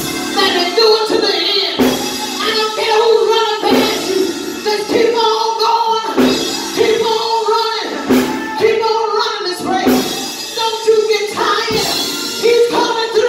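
A woman singing through a handheld microphone, with long held notes and a sharp percussive hit about every two seconds.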